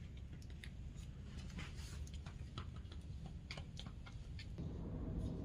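Quiet indoor room tone: a steady low rumble with scattered faint clicks and taps. The low background noise grows louder near the end.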